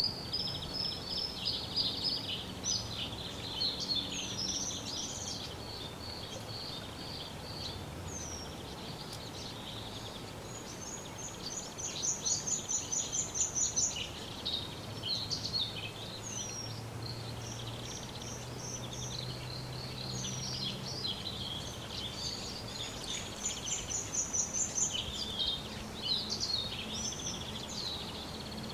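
Several small birds singing and calling at once: overlapping high chirps, whistled notes and quick trills of repeated notes, with a louder trill about halfway through and again near the end. A faint low hum lies underneath.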